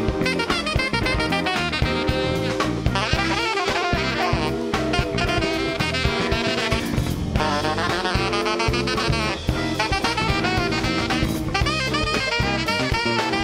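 Live blues band: a saxophone solos in bending runs over a drum kit and the rest of the band.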